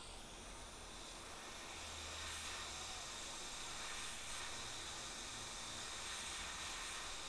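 Hot air rework station blowing a faint, steady hiss onto a small 8-pin flash chip to melt its solder so it can be lifted off a hard-drive circuit board. The hiss grows a little louder about two seconds in.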